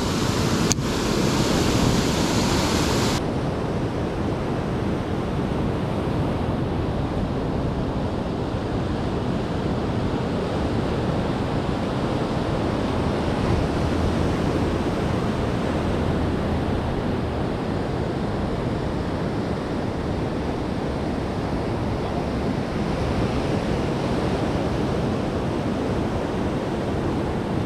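Ocean surf breaking and washing over a rocky shore: a steady rushing noise with no let-up, its energy mostly low in pitch.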